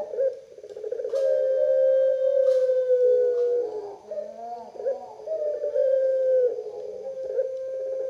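Collared dove of the long-voiced 'puter pelung' type cooing: long, drawn-out coos held at one steady pitch, the longest lasting about two and a half seconds, with shorter wavering notes between them.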